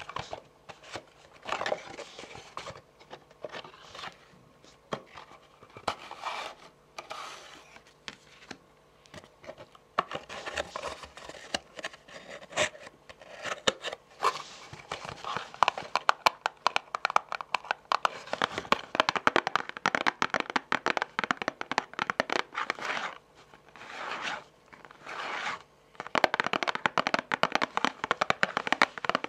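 Long fingernails tapping and scratching on a cardboard tarot card box as it is handled and turned. The taps come in quick runs with short pauses, denser from about ten seconds in.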